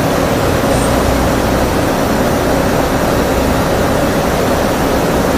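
Steady noise of a jet aircraft in flight, engine and rushing air blended into an even, unbroken sound.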